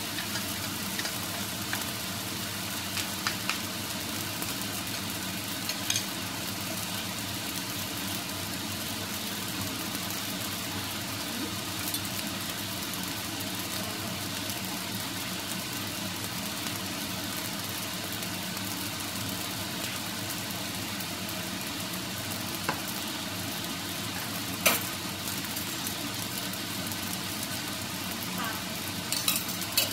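Rice frying in a nonstick pan, a steady sizzle, with a few scattered sharp clicks as wooden spatulas turn the rice and tap the pan.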